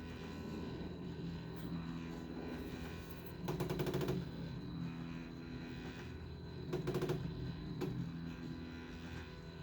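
Stepper motor driving a homemade 3D printer axis, humming steadily, with two short bursts of rapid rattling about 3.5 and 7 seconds in. The axis is straining against too much resistance and trying hard not to skip steps.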